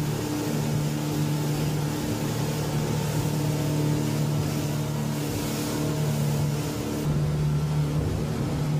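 Twin Yamaha 150 outboard motors running steadily at cruising speed, a constant hum over the rush of the wake and water. About seven seconds in the hiss of water and wind eases and the engine hum comes through heavier.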